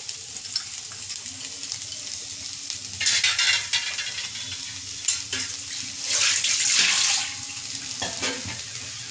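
Chopped onions sizzling in hot mustard oil in a non-stick kadai as wet, squeezed bitter gourd peels are tipped in. There are louder bursts of sizzling and stirring about three seconds in and again around six to seven seconds, with a few light knocks of the spatula against the pan.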